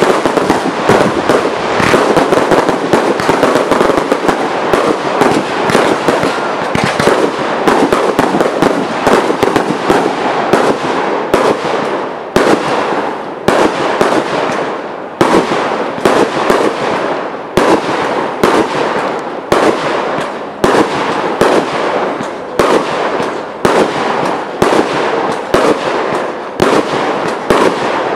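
Professional fireworks display: a dense, continuous barrage of aerial shell bursts and crackle that thins out about halfway through into separate loud bangs, roughly one a second.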